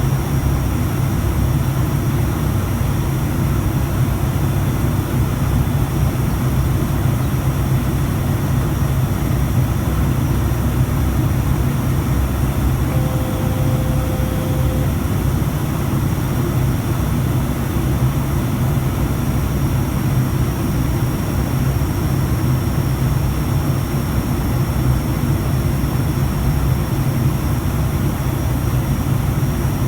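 ATR 72 twin turboprop engines running with a steady, unchanging drone, heavy in the low end. A brief faint tone sounds about halfway through.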